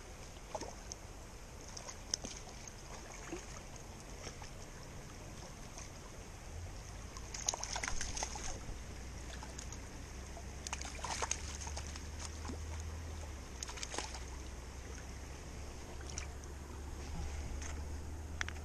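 Shallow creek water running over stones, with short splashes a few times in the middle as a small brown trout on the line thrashes in the shallows.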